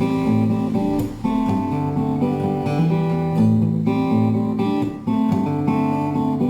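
Recorded music with acoustic guitar playing through Tannoy Eclipse 3 loudspeakers, picked up by a phone microphone in the room. The music dips briefly twice.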